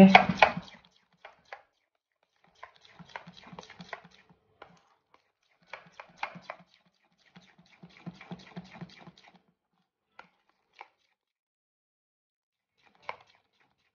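Metal spoon stirring thick semolina batter in a stainless steel bowl: faint scraping and clinks against the bowl in three short spells, then a few single taps near the end.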